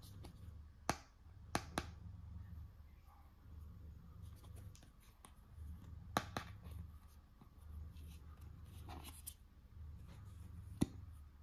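Faint close-up handling of small objects, with a handful of sharp clicks, some in quick pairs, over a low steady hum.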